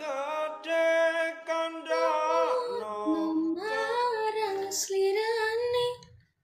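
A woman singing in a high voice, holding long notes and sliding between them. The singing stops about six seconds in.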